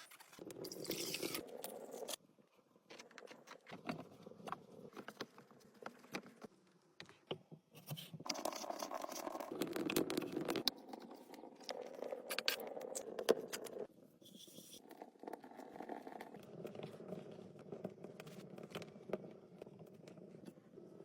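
Irregular scraping and rustling with many small clicks and taps as things are handled, stopping briefly twice.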